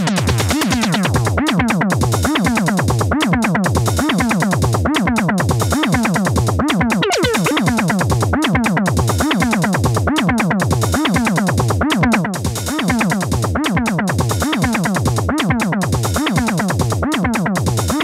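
Eurorack modular synthesizer patch built around the Neuzeit WARP wavetable-and-additive oscillator, playing a techno-style loop: deep bass notes that drop in pitch about twice a second under busy synth tones, the sound changing as the module's knobs are turned. The level dips briefly about twelve seconds in.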